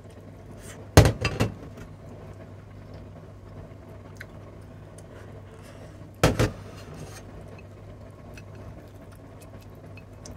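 Ceramic plate and rice bowl clattering against each other and the steel tabletop in two short bursts, about a second in and about six seconds in, with faint chopstick clicks between, over a steady low hum.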